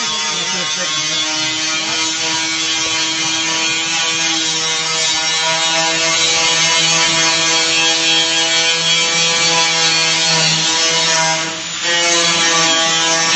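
A power tool running loud and steady with a buzzing whine held on one pitch, over a hiss. It lets off for a moment near the end and starts again.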